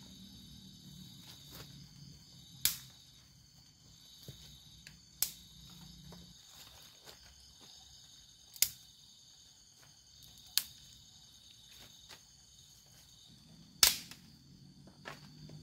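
Wooden sticks cracking sharply, about five loud cracks a few seconds apart, the loudest near the end, over a steady high chorus of night insects.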